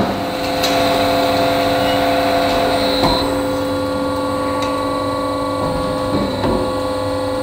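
Alligator HD510SAF semi-automatic bandsaw running free with a steady hum after breaking through the cut, while the saw head rises back up, with a few light clicks and knocks along the way.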